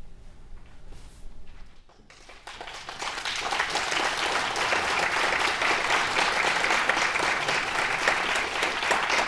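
Audience applause that begins about two seconds in, after a short lull, and builds quickly to steady clapping from a full hall.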